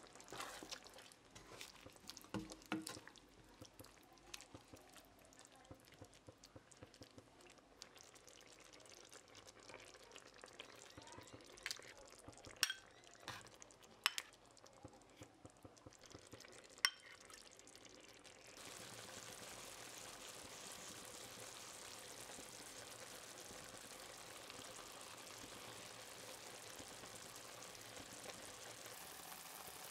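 Tomato and vegetable sauce simmering in a pan while a spoon stirs it, with scattered sharp clicks of a bowl and utensils against the pan as eggs are slipped into the sauce. A little past halfway the clicks stop and a steady sizzle of the eggs cooking in the sauce takes over.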